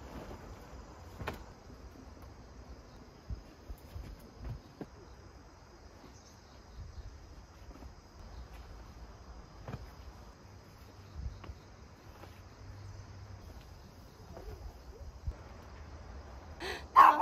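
A steady high insect chorus, with soft rustling and a few light knocks from bedding being shaken out and spread on a sleeping mat. A short, loud sound comes right at the end.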